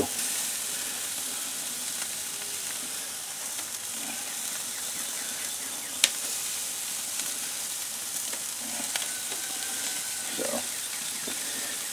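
Beef burger patties and thin slices of hard salami sizzling on a gas grill's grates: a steady hiss, with one sharp click about halfway through.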